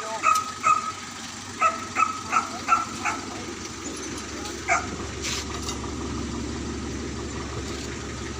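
A hunting dog barking in a quick run, about three barks a second for the first three seconds, and once more near the five-second mark. A steady low engine hum runs beneath, most clearly in the second half.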